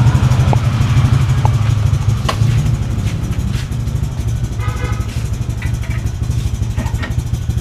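Honda Click scooter's single-cylinder engine idling steadily through an aftermarket JVT exhaust pipe, a deep, low, even pulsing with a few faint light clinks over it.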